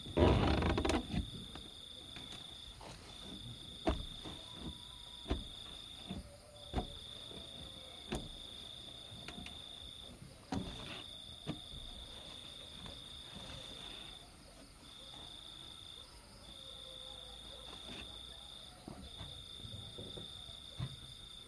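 An insect calls with a steady, high-pitched trill, held for stretches of about three seconds with short breaks between. Scattered light knocks and a louder rustling burst right at the start come from someone working close by.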